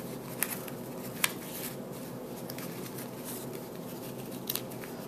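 Cotton fabric being ruffled and pressed by hand, soft handling noise with a few faint ticks, over a steady low room hum.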